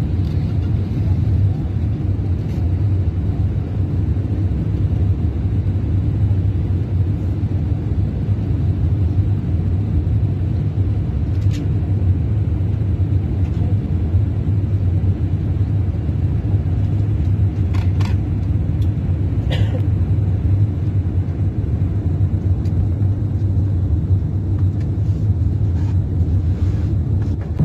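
Steady low rumble of engine and airflow noise inside the cabin of an Airbus A380 airliner, with a few faint clicks about halfway through.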